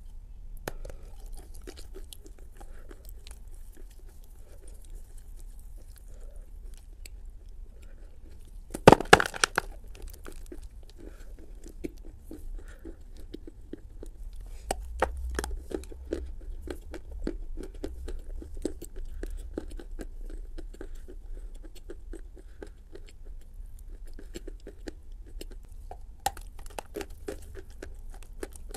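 A person biting and chewing a lump of edible clay: steady small chewing clicks throughout, with a loud bite about nine seconds in and further bites in the middle and near the end.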